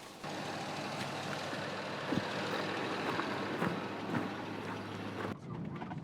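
Motor vehicle on the move: steady engine hum and road noise that starts suddenly and cuts off abruptly after about five seconds.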